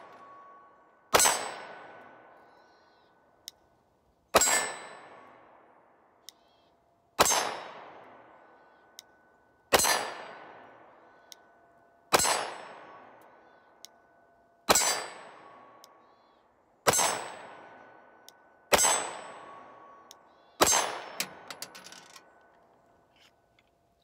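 Nine slow, single 9 mm pistol shots from a Glock 19 Gen 4, about two to three seconds apart, each with a long echoing tail and a short ringing tone from the steel target plate. Faint single clicks between some shots are what the shooter points to as the trigger reset.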